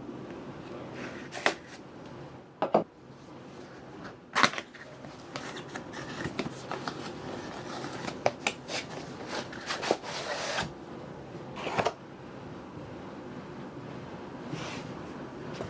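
A keyboard's cardboard box being handled and opened: several sharp knocks and taps spread through, with a short rustle of wrapping about ten seconds in.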